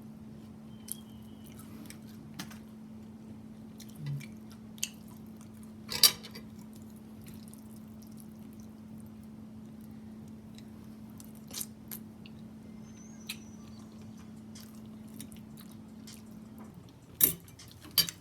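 Close-up chewing and biting on crispy fried chicken: scattered crunches and mouth clicks, the sharpest about six seconds in and twice near the end. Under them runs a faint steady hum that stops shortly before the end.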